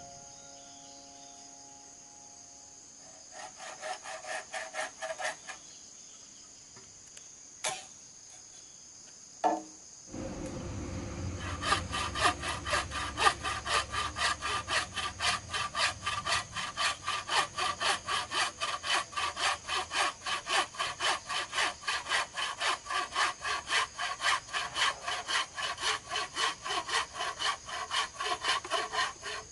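Hand saw cutting bamboo with a back-and-forth rasp. A short run of strokes and two sharp knocks come first. From about a third of the way in it is steady sawing at about three strokes a second.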